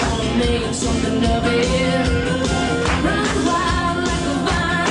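Country music playing, a singing voice over a band with a steady beat.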